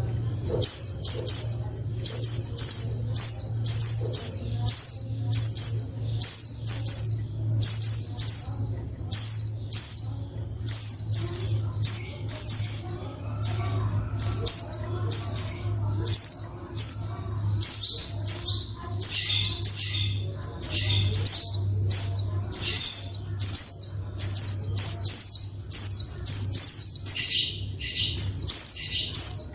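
Female white-eye (pleci) calling: quick clusters of two to four high, downslurred chirps, repeated a little more than once a second. A steady low hum sits underneath.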